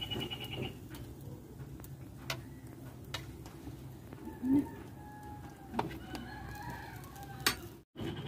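Chickens clucking and a rooster crowing in the background, with one louder call about halfway through. A few sharp clicks are scattered through.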